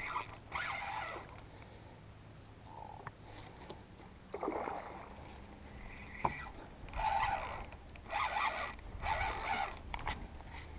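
Spinning reel being cranked while fighting a fish, heard as short whirring bursts, three of them about a second apart near the end.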